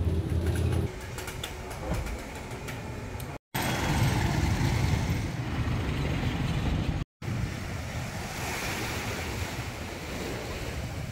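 Three short ambiences, cut one after another: light clicks over a low hum, then street traffic of motor tricycles and motorbikes running, then waves washing onto a sandy beach.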